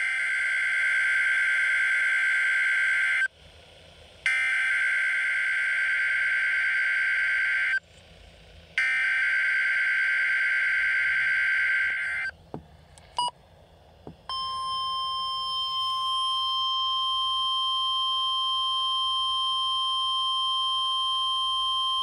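NOAA Weather Radio test signal through a Midland weather radio's speaker: three bursts of SAME digital alert-header data, a harsh two-tone warble, each about three and a half seconds long with a second's pause between. A few clicks follow, then about halfway through the steady 1050 Hz warning alarm tone starts and holds.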